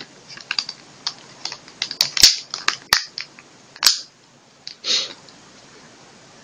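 Glossy back cover of a Lenovo P770 smartphone being pressed and snapped into place on the phone: a run of sharp plastic clicks over the first four seconds, then a short rustle about five seconds in.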